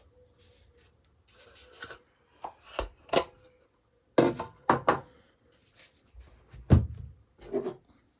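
Plastic parts of a cordless pressure washer's lance and attachments being handled: a string of separate clicks, knocks and rubs.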